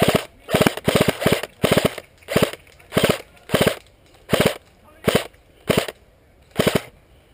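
G36C electric airsoft rifle with a suppressor firing about a dozen short bursts, each a quick rattle of a few shots, roughly one burst every half second to second.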